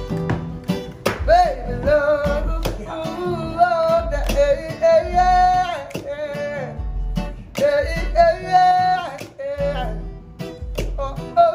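Acoustic guitar strummed in a steady rhythm, with a man singing over it from about a second in.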